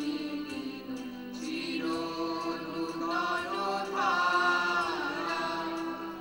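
A group of voices singing a song together over a steady held accompaniment note.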